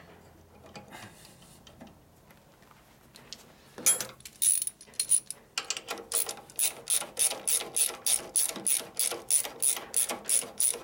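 Socket ratchet wrench clicking in steady strokes as a bolt is turned, about three clicks a second, starting about four seconds in after a few faint handling sounds.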